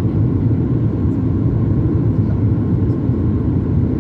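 Steady low cabin rumble inside a Boeing 737 MAX 8 in flight: airflow over the fuselage and the CFM LEAP-1B turbofan engines, heard from a window seat.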